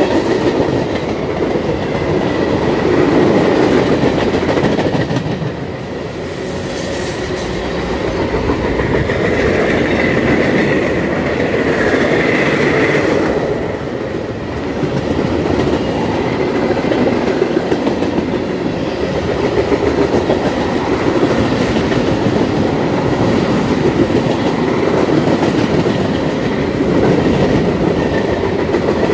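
Mixed freight train of tank cars, boxcars and flatcars rolling past close by at speed: a steady rumble of steel wheels on rail with rhythmic clickety-clack over the rail joints.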